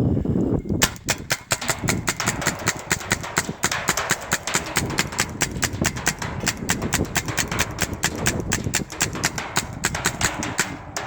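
Paintball gun firing a rapid string of sharp shots, about seven a second, with a low rumble underneath; the shots stop just before the end.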